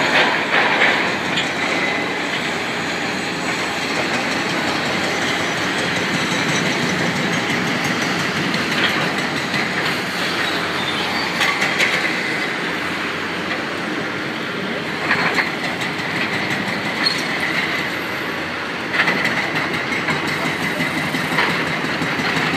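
Demolition machinery working through rubble: a steady mechanical din with metal scraping and high squeals that come and go several times, over passing street traffic.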